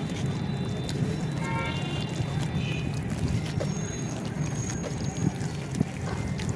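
Hands stirring and squeezing crumbled red dirt in a tub of muddy water: a steady sloshing of thick clay slurry with small wet splashes and squishes as the lumps break down into paste.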